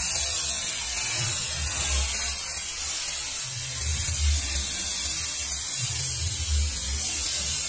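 Trompillo pinwheel firework spinning and spraying sparks with a steady, high buzzing hiss. A low throb swells and fades underneath every second or two.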